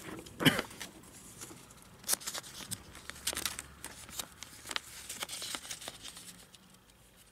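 Plastic Blu-ray case being handled and turned over: scattered clicks and rustles, with sharper clicks about half a second and two seconds in.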